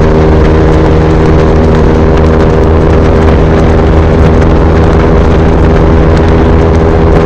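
KTM RC 390's single-cylinder engine through an SC Project replica slip-on exhaust, running loud and steady at an even cruising speed on the highway.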